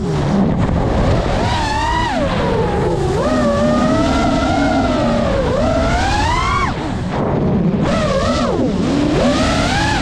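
FPV racing quadcopter's electric motors and propellers whining, the pitch swooping up and down again and again as the throttle changes, over a steady low rush.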